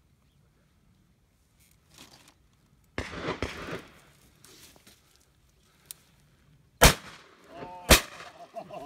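Two shotgun shots about a second apart, both sharp and loud. A quieter, rougher burst of noise comes about three seconds in.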